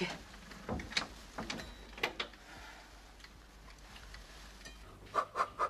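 Scattered light clicks and knocks: several spread over the first couple of seconds, a soft rustle in between, then three quick clicks close together near the end.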